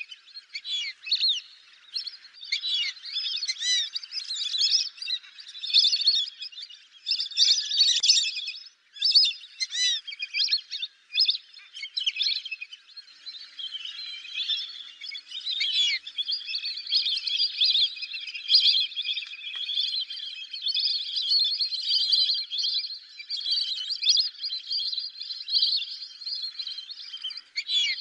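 A flock of fulvous whistling ducks calling, many short whistled calls overlapping. The calling grows denser and steadier about halfway through.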